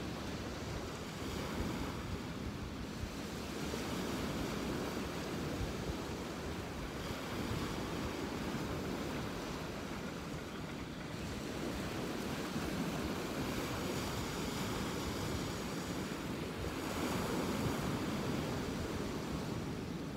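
Ocean surf washing onto the beach, a steady rush that swells and eases every few seconds.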